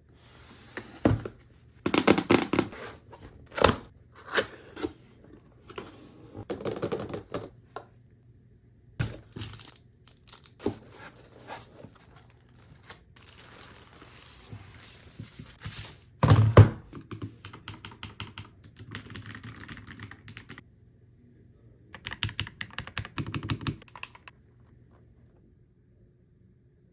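A mechanical keyboard being unpacked: box and packaging knocked, set down and rustled, with scattered thuds. Later come short runs of rapid key clicks as the keyboard is typed on.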